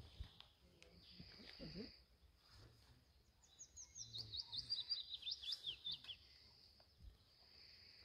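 Male willow warbler singing one song phrase about three and a half seconds in: a quick run of clear notes that falls steadily in pitch over nearly three seconds.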